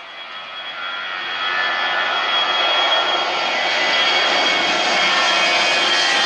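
Jet airliner's engines at takeoff power, growing louder over the first two seconds and then holding loud, a high whine over the roar of the exhaust.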